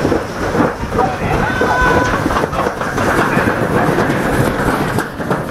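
Toboggan sled running fast down a stainless-steel slide track: a steady, loud rumbling rattle of the sled on the metal. A brief high note sounds about a second and a half in.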